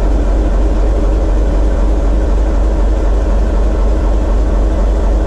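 Diesel engine of a TEM2 shunting locomotive running steadily under heavy load at the fifth controller position, a deep even drone heard from inside the cab. The engine is loaded into a water rheostat at about 400 kW, its speed slightly low for the notch.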